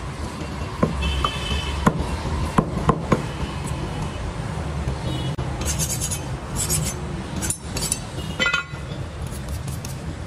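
Meat cleaver chopping goat meat on a wooden log chopping block: about five sharp chops in the first few seconds, then the blade scraping across the block several times. A steady low rumble sits under it all.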